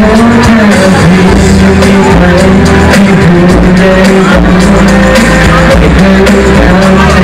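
A man singing a Thai pop song live into a handheld microphone over loud backing music with drums, played through a PA.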